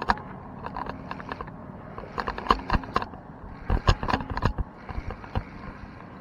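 Irregular knocks, clicks and rubbing of handling noise against a body-worn camera as a spinning rod and reel are worked to bring in a fish, over a faint steady low hum.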